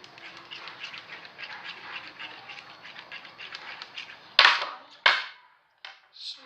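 Slime being stirred in a bowl: a dense run of small sticky clicks and crackles. Near the end come two loud, short sounds about two-thirds of a second apart.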